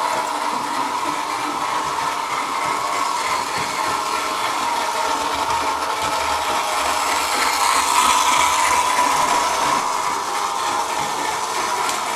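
Märklin gauge 1 BR 80 model locomotive running on its track, its electric motor and gears making a steady whir. The whir grows louder about two-thirds of the way through as the locomotive draws nearer.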